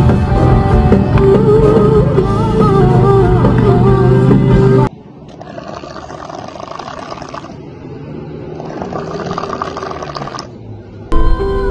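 Music with a steady bass for about the first five seconds, then it cuts off and a man's snoring takes over: two long, muffled snores, a short pause between them. Music starts again near the end.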